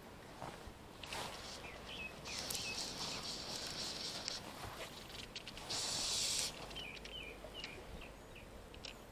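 Fly reel's click-and-pawl ratchet buzzing as line is reeled in, in two runs: one of about two seconds, then a shorter, louder one about six seconds in.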